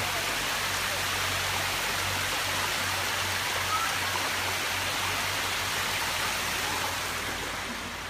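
Waterfall: a steady, even rush of falling and running water, easing off slightly near the end.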